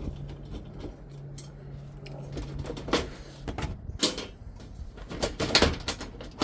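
Metal dishwasher door parts knocking and clanking as the door hinge is worked loose by hand, with several sharp knocks in the second half over a faint low hum that stops about halfway through.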